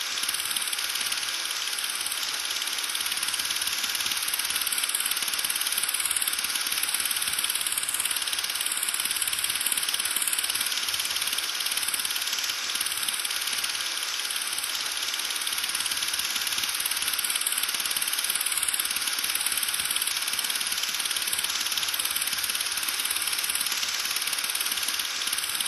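Steady hiss of noise, strongest in the high range, with no pitch or beat.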